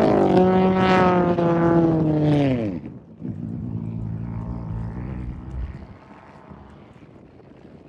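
Off-road race vehicle's engine running hard at high revs as it passes close by, its pitch falling and fading about two and a half seconds in. A second, fainter engine drones until about six seconds in, then only faint background noise remains.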